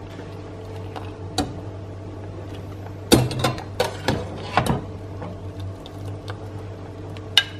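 Metal ladle knocking and clinking against a stainless steel pot and a plate while boiled dumplings are scooped out of the water: one knock about a second in, a cluster of clinks in the middle and one more near the end. A steady low hum runs underneath.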